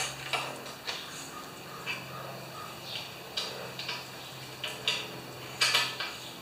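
Scattered sharp clicks and light metal clinks, the largest cluster near the end, as the push mower's stop cable and bail are worked by hand, over a steady low hum.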